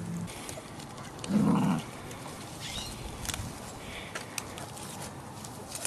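Dachshund puppies playing in grass with their mother. There is a short, loud low sound about a second and a half in, then a few faint high squeaks and small ticks and rustles.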